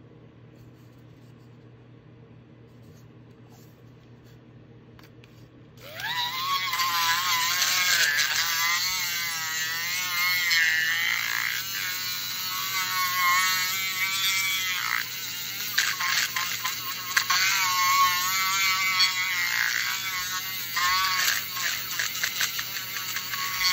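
A small handheld electric mixer switches on about six seconds in and runs, its motor whine wavering up and down in pitch as the spinning shaft stirs nail polish in a paper cup.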